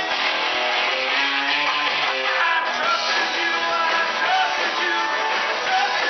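Live band playing a song, with electric guitar and drums.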